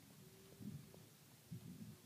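Near silence with a few soft, dull thuds: footfalls in straw bedding.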